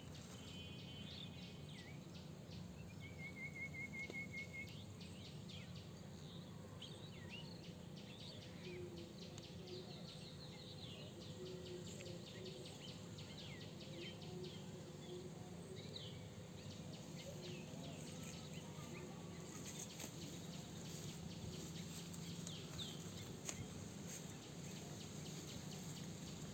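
Quiet outdoor ambience: a low steady hum under scattered bird chirps and calls, with a short trill a few seconds in.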